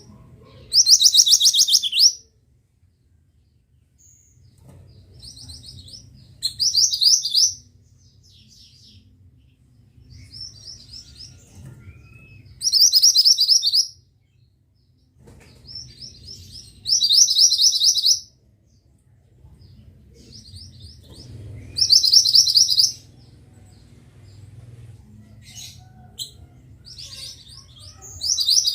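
Pied bushchat (mantenan) singing: a short, fast, high buzzy trill of about a second, repeated over and over every four to five seconds, with faint softer chirps in between.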